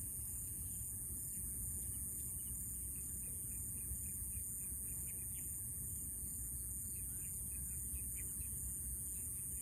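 Evening outdoor ambience: a steady high-pitched hiss, with faint short chirps repeating two or three times a second and a low rumble underneath.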